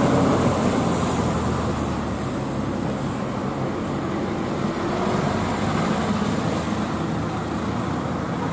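Heavy loaded diesel truck's engine running steadily under load as the truck climbs slowly past and pulls away, with other road traffic.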